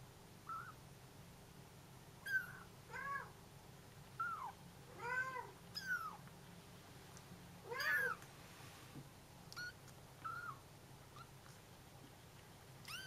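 Young Bengal kittens meowing in short, high calls that rise and fall in pitch, about a dozen at irregular intervals: calling for their absent mother.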